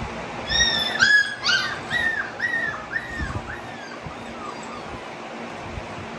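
American bully puppies whimpering: a run of short, high, arched whines, loudest about a second in and fading away after about four seconds.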